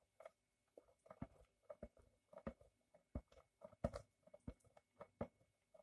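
Cheese being grated by hand on a perforated metal grater: a run of short, faint scraping strokes, roughly two a second and a little uneven.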